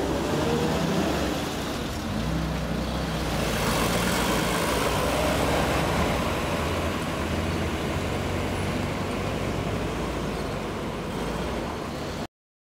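WWII military vehicles driving past on a road, a six-wheeled armoured car and then a jeep, with steady low engine notes and road noise. The sound cuts off suddenly near the end.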